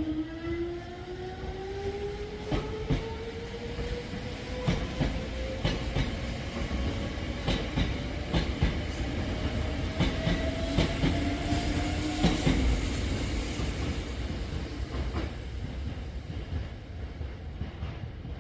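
Hankyu electric train pulling away and accelerating. The whine of its traction motors rises steadily in pitch for about twelve seconds, then fades out under the running rumble. The wheels clack over rail joints throughout.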